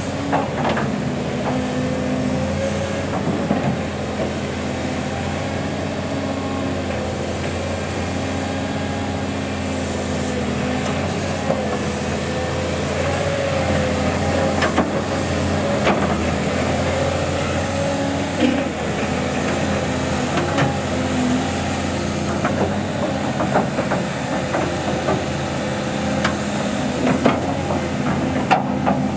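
35-tonne hydraulic excavator digging a trench with a tiger-tooth bucket: the diesel engine runs steadily under a hydraulic whine that wavers up and down with the load, with scattered short knocks from the bucket working the ground.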